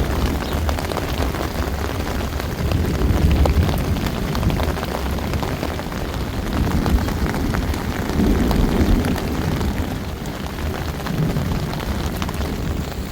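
Rain falling in a thunderstorm, with many fine drop ticks over a low rumble that swells and fades.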